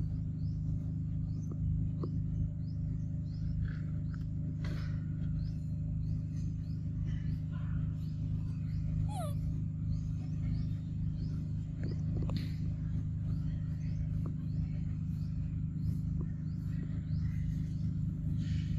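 Steady low drone with faint repeated high chirps, and a few short animal calls, one of them a falling glide about halfway through.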